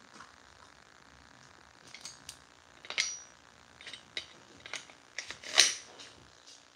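Serrated knife and its sheath being handled: scattered clicks and clacks as the blade goes into the sheath and its clips and straps knock together. The loudest clack comes a little past five seconds in, with a brief high ring about three seconds in.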